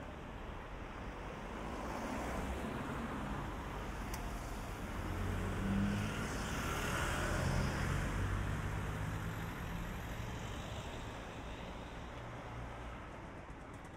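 A motor vehicle passing on the street, its engine and tyre noise building to its loudest about halfway through and then fading away.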